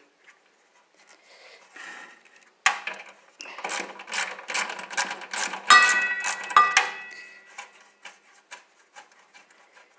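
A screw being backed out of a Craftsman table saw with a hand tool: a run of metal clicks and scraping, with a short metallic ringing squeak in the middle, thinning out near the end.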